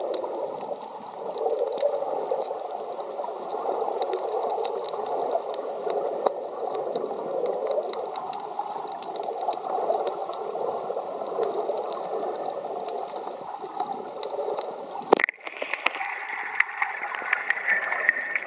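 Underwater ambience heard through a submerged camera: a steady low rushing of water with scattered faint clicks. About fifteen seconds in there is one sharp knock, and the rushing turns to a higher hiss.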